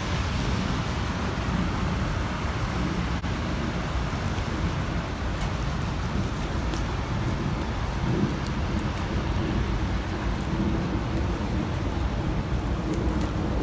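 Steady street noise: traffic from the road below the shrine steps, with a low rumble of wind on the microphone.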